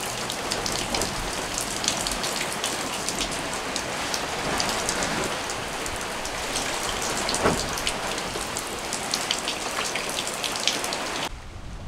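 Rain falling on the deck, hatches and fittings of a Leopard 45 sailing catamaran: a steady hiss dotted with many sharp taps of drops, with one louder tap about two-thirds of the way through.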